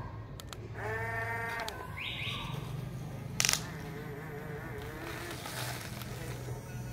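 Huina remote-control toy excavator's small electric motors whirring as the boom and bucket dig into sand and lift a load. A short wavering tone comes about a second in, and a sharp click about three and a half seconds in.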